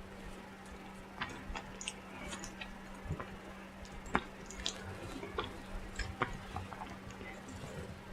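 Close-up mouth sounds of a person chewing food: irregular soft wet smacks and clicks of the lips and tongue, about a dozen scattered through the stretch.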